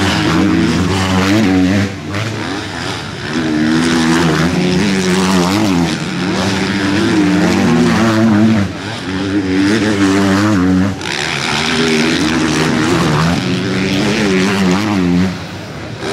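Motocross motorcycle engines revving hard, their pitch climbing and dropping with throttle and gear changes, with several sudden cuts in throttle.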